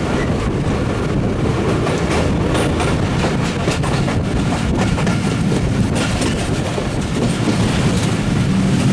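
Passenger train running along the track, heard from on board: a steady rumble of the carriage with scattered clicks of the wheels over the rails.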